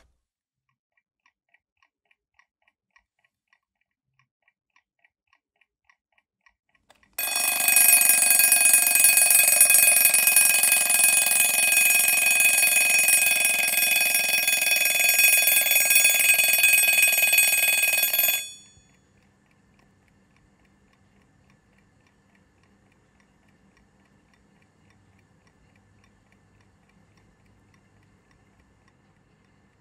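Mechanical alarm clock ticking faintly and quickly, then its bell ringing loudly for about eleven seconds before cutting off suddenly; faint ticking returns afterwards.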